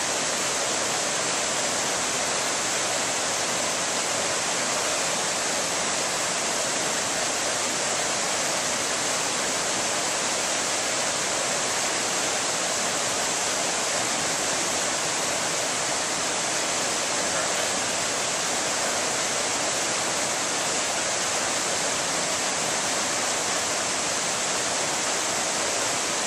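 Steady rushing of fast-flowing river water over rocks, an even hiss that does not let up.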